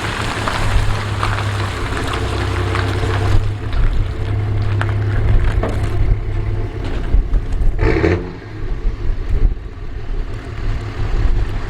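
Vehicle engine idling steadily, with scattered knocks and clatter and one short, louder sound about eight seconds in.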